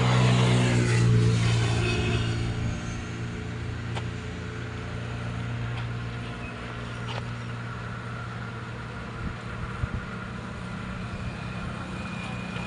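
Water-cooled diesel engine driving an air compressor, running steadily with a low, even hum. It is louder for the first couple of seconds, then settles to a steady run. A couple of short knocks come about nine to ten seconds in.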